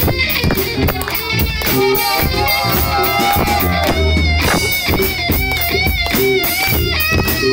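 Live rock band playing loud: electric guitar lines over a driving drum beat.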